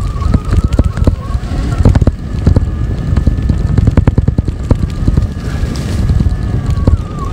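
Zero FX electric motorcycle riding over a bumpy dirt trail: a thin, steady high whine from the electric drive over constant rumbling and repeated knocks and rattles from the bike running over rough ground.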